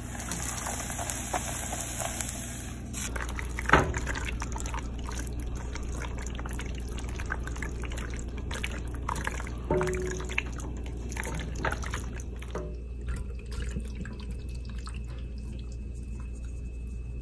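Cheese sauce pouring from a saucepan onto cooked penne, then the sauced pasta stirred and scooped with a silicone spatula: wet squelching and small clicks, with one sharp knock about four seconds in.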